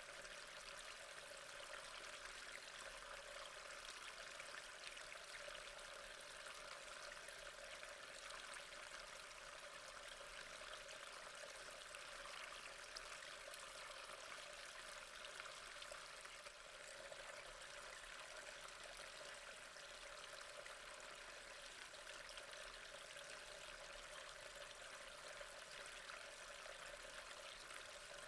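Flowing water trickling and splashing steadily and softly.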